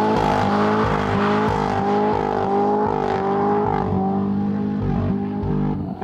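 Chevrolet Corvette V8 held at high revs during a burnout, its rear tyres spinning on the tarmac under a hissing haze; the engine note wavers a little, then drops away near the end.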